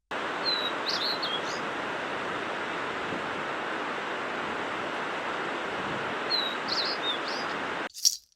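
A small bird's short chirping phrase, a quick high chirp followed by a few notes, heard twice over a steady outdoor hiss. Near the end it cuts off suddenly and a sharp rattle sounds.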